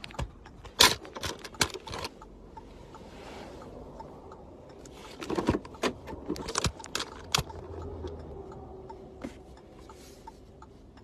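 Scattered clicks, taps and rattles of a phone being handled and set in place by hand inside a car, in bunches about a second in and again from about five to seven and a half seconds in, over a low steady cabin hum.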